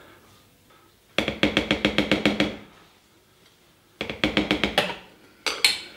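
A spatula scraping melted chocolate out of a glass bowl, catching and chattering against the glass in two runs of rapid ringing ticks, about a second in and again about four seconds in, with a shorter scrape near the end.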